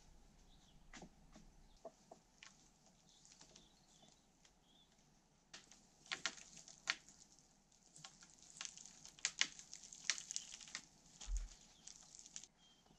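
Scattered crackles, clicks and scuffs of someone moving and working on dry forest ground, busier and louder in the second half, with one dull bump near the end.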